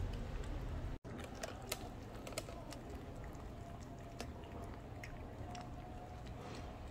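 Two cats eating wet food from a plate: quick, irregular wet clicks of licking and chewing.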